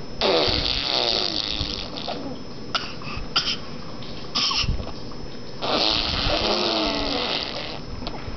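Baby blowing raspberries: two long voiced lip trills of about two seconds each, with a few short sputters between them.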